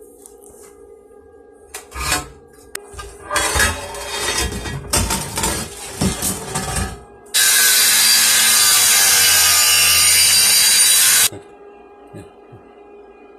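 Metalworking in a workshop: a knock, then about four seconds of irregular scraping and clattering strokes, then a power tool running loud and steady on metal for about four seconds before it cuts off abruptly.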